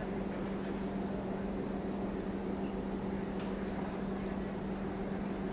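A steady low mechanical hum holding one pitch, with a fainter overtone above it, even in loudness throughout.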